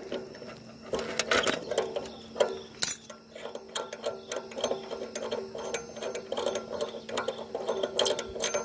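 Irregular clicks and light metallic clinks from parts and tools being handled while a cut-off saw is taken apart to change its wheel, over a steady low hum.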